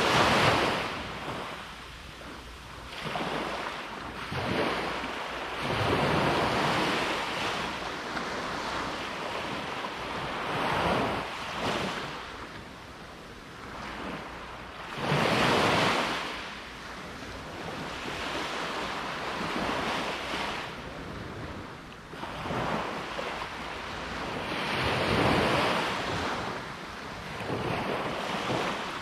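Sea waves breaking and washing on the shore in slow surges that swell and fall away, the loudest at the very start and about fifteen seconds in. A low wind rumble sits on the microphone underneath.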